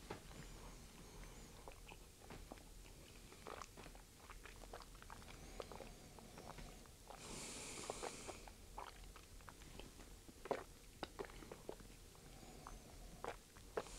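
Faint wet mouth sounds of someone tasting whisky: scattered small clicks and smacks as the spirit is worked around the mouth, with one breath a little past halfway.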